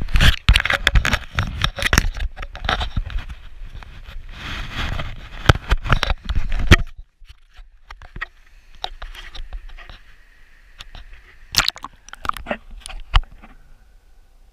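Rough handling noise of a camera being gripped and moved at a river's edge, with splashing water and many knocks and scrapes. About seven seconds in it cuts off sharply to a muffled, much quieter sound as the camera goes under the water, with a few scattered knocks after.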